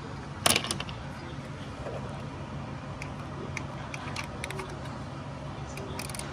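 A sharp metallic clank about half a second in, then scattered light clicks and another short cluster of clicks near the end: hand tools, a socket and ratchet, on metal while unbolting an engine bracket. A steady low hum runs underneath.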